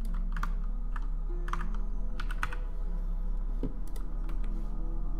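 Computer keyboard keystrokes: a handful of sharp, irregularly spaced clicks as shortcut keys are pressed, over a steady low hum.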